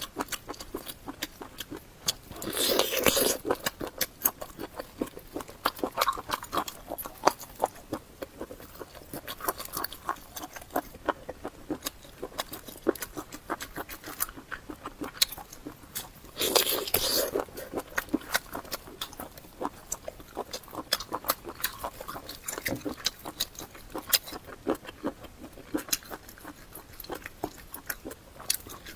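Close-miked chewing: wet mouth sounds with many small irregular smacks and clicks. Two louder, breathy slurping or sucking bursts come about three seconds in and again about seventeen seconds in.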